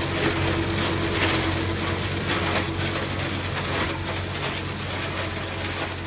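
A tractor engine running steadily while a tractor-mounted hydraulic branch sweeper spins its tine head along the ground. The tines rattle and clatter through pruned branches as they rake them into a row.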